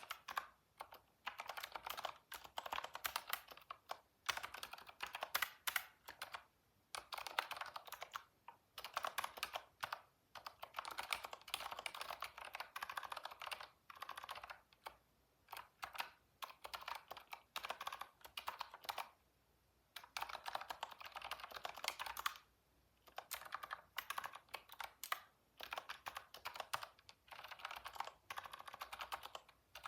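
Typing on a computer keyboard: fast runs of key clicks in bursts of several seconds, broken by brief pauses.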